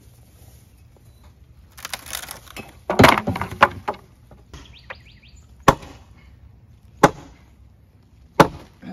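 Old wooden pen fence being knocked apart with a long pole: a loud cracking, clattering break of wood about three seconds in, then three sharp separate knocks of wood about one and a half seconds apart.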